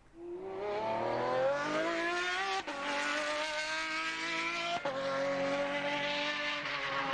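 Race car engine accelerating hard. Its pitch climbs steadily, then breaks with a gear change about two and a half seconds in and again near five seconds, and it holds high revs before easing off slightly near the end.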